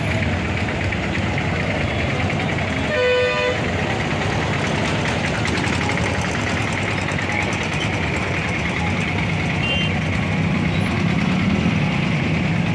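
Stalled road traffic: motorcycle and auto-rickshaw engines idling in a steady hum, with one short vehicle horn toot about three seconds in.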